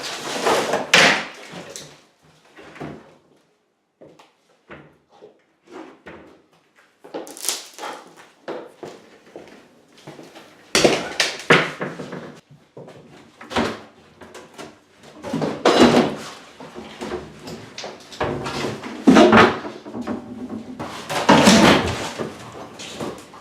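Irregular knocks, bangs and clattering of hard objects being handled and struck, quiet for a few seconds early on and then in repeated loud bursts.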